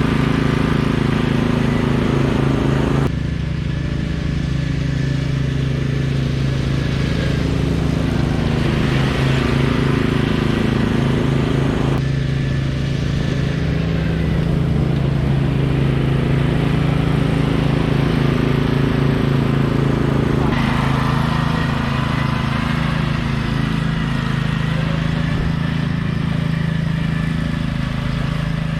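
Troy-Bilt riding lawn mower's engine running steadily while mowing, its sound changing abruptly about three, twelve and twenty seconds in.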